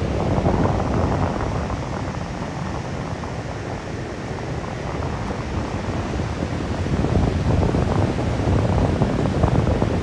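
Strong sea wind buffeting the microphone in uneven gusts, over the steady wash of surf breaking along the shore.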